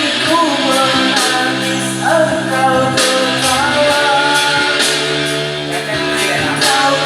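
A voice singing a melody over instrumental accompaniment with a steady beat.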